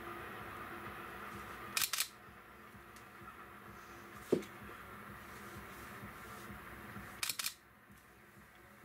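Camera shutter firing twice, each a quick double click, about two seconds in and again about five seconds later. A faint steady rumble of a distant passing freight train lies beneath and drops off after the first shot, and there is one soft knock in between.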